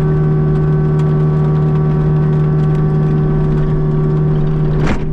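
Mini excavator's diesel engine running at a steady speed, heard from the operator's seat, with one short, sharp sound near the end.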